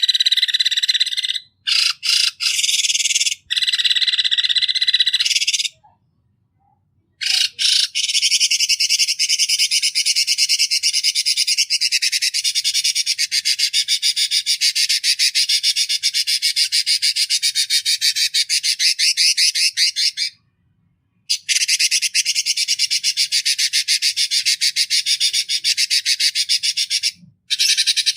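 Harsh, buzzing, rapidly pulsed bird calls ('kasaran') in long rattling trains broken by abrupt silent gaps; the longest train lasts about thirteen seconds. This is masteran material, played so that songbirds learn rough, sharp calls.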